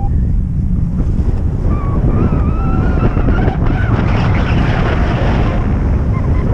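Wind buffeting the microphone in a steady low rumble, with a faint wavering whine partway through.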